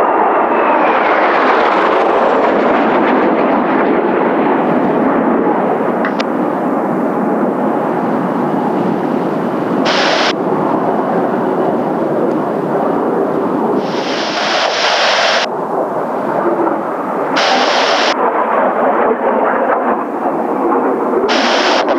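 Kawasaki T-4 jets of the Blue Impulse team passing, their twin turbofans giving a continuous roar with a falling whine in the first two seconds, mixed with strong gusting wind buffeting the microphone. Several short bursts of high hiss break in over the roar.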